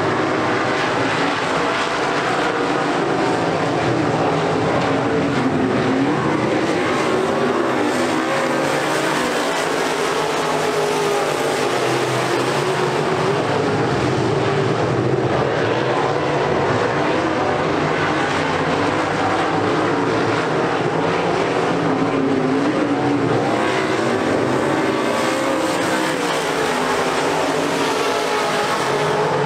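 A field of UMP Modified dirt-track race cars running laps together, their V8 engines overlapping in a steady drone whose pitch rises and falls as the cars go through the turns and down the straights.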